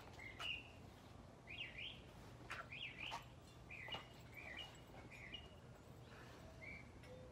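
Faint small-bird chirping: short repeated chirps, about one a second.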